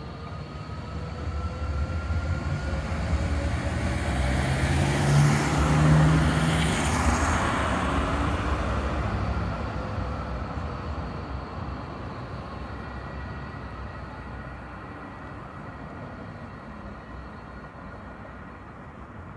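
Low-floor electric tram approaching, passing close and rolling away, with a thin motor whine over the rumble of its wheels; loudest about five to seven seconds in, then fading.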